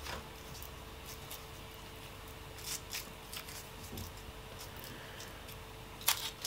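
Faint crinkling and ticking of a foil chewing-gum wrapper being unfolded by hand, with a louder crinkle near the end.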